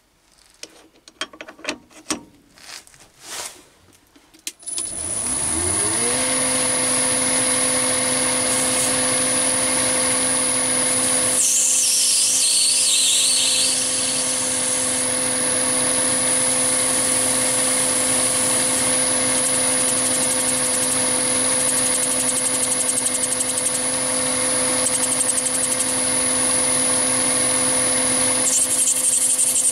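A few clicks and knocks as a tool holder is fitted to the quick-change toolpost, then a Chinese 7x14 mini lathe starts about four and a half seconds in, its motor and gears rising in pitch to a steady whine. The turning tool cuts the spinning brass bar, with a brief falling squeal from the cut around the middle and more cutting noise near the end.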